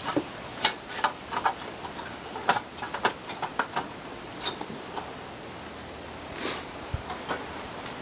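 Scattered light clicks and taps of sheet metal as the casing and top filler plate of an A-frame evaporator coil are handled and fitted, over a steady background hiss.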